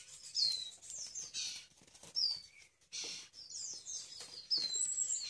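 Nestling songbirds cheeping: repeated short, high calls, each sliding downward in pitch, with some rustling between them.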